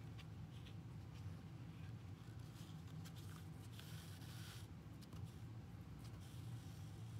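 Faint rustling and scratching of yarn being woven over and under the warp strings of a cardboard loom, with a longer hiss of yarn drawn through about four seconds in, over a steady low hum.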